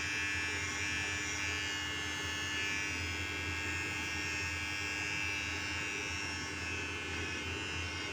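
Electric hair clippers running with a steady buzz while trimming hair at the back of the neck.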